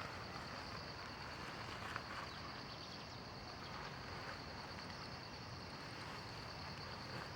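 Steady outdoor forest ambience in rain: an even hiss with a constant high insect drone over it and a couple of faint taps.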